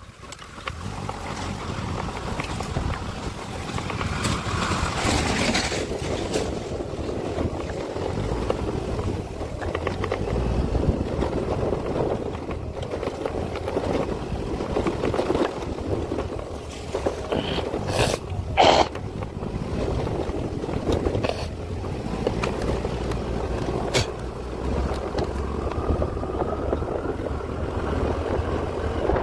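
Steady noise of a vehicle on the move along a road, with wind rushing over the microphone, and one short sharp clatter about eighteen seconds in.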